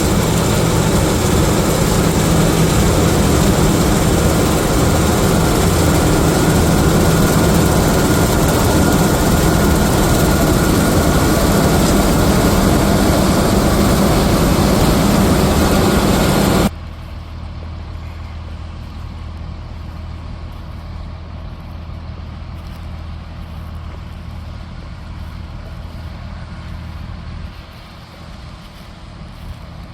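Heavy harvest machinery running: loud, steady machine noise with a faint steady whine, which cuts off suddenly a little past halfway to a much quieter low engine hum.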